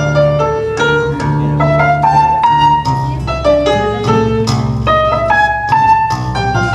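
A keyboard instrument playing a baroque piece live: quick runs of separate notes over held bass notes.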